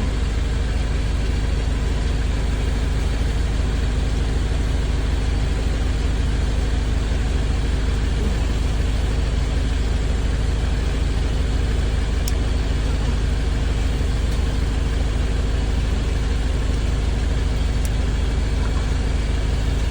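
Steady low rumble like an idling engine, even in level, with a couple of faint clicks.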